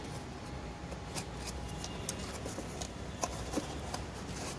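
Faint scattered clicks and taps of a hand handling the plastic panel of a scooter's front compartment and a small cardboard box, over steady low background noise.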